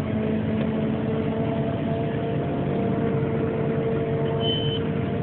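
CLAAS 850 forage harvester running, heard from inside its cab: a steady, even machine drone with several held tones, and one short high tone near the end.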